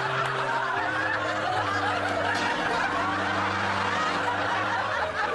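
Studio audience laughing in a steady, continuous wave.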